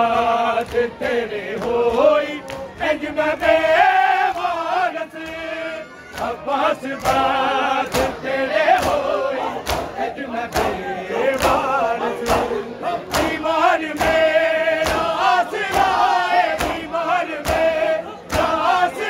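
Noha, a Shia mourning lament, sung unaccompanied by a lead male reciter with a group of men chanting along, over the crowd's chest-beating (matam): sharp slaps of hands on bare chests falling in a steady beat.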